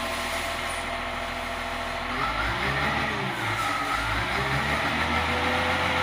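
Caterpillar 950H wheel loader's C7 diesel engine running with its speed hunting: the revs rise and fall on their own several times, in waves a second or two long. The owner links the unstable acceleration to a faulty engine sensor flagged on the monitor.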